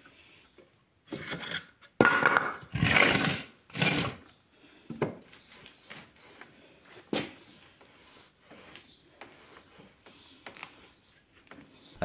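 Handling noise from a wooden test rig: a plywood steering box and planks knocked and rubbed as the bicycle wheel on it is pushed and turned. Irregular scrapes and knocks, busiest about two to four seconds in, with a sharp knock about seven seconds in.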